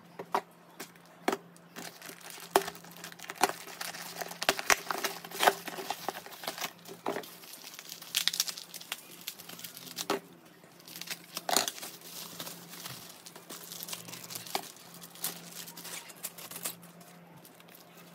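Packaging being unwrapped by hand: cardboard and packing tape tearing, then plastic bubble wrap crinkling, with many irregular sharp crackles and clicks.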